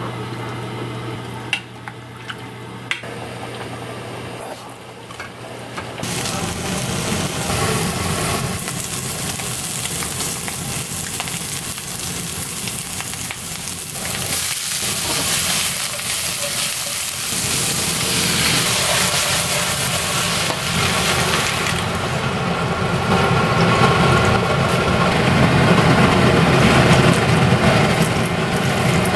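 Food sizzling and frying in a pan. A few light clicks come in a quieter first stretch, then the sizzle rises sharply about six seconds in and its hiss thins near the end.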